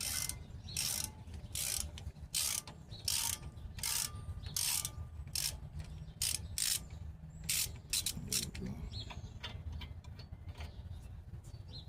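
Hand ratchet working on bolts of the truck's brakes, its pawl clicking in short, rasping strokes one after another, about one or two a second. The strokes thin out and grow fainter after about eight seconds.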